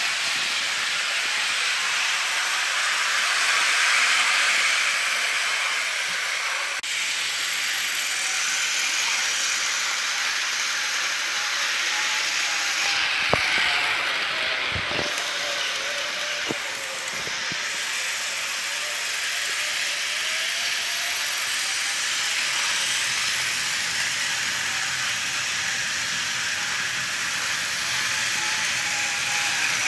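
HO scale model trains running on plastic sectional track: a steady mechanical clatter of wheels and mechanisms. A faint whine rises and falls in pitch, and a few sharp clicks come about halfway through.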